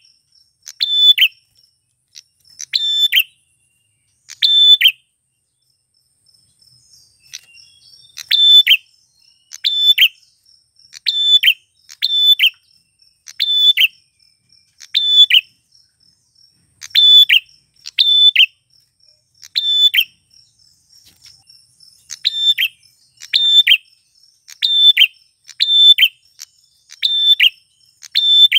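Male prinia (prenjak klawu) calling: a loud, sharp, downward-bending call repeated about once a second, with a pause of about three seconds roughly a quarter of the way in.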